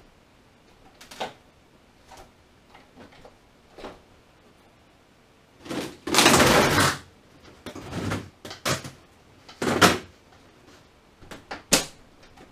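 Handling noises as a flexible plastic air duct is fitted at a window: a few light knocks, then a loud rustling scrape lasting about a second, followed by several shorter scrapes and a sharp knock near the end.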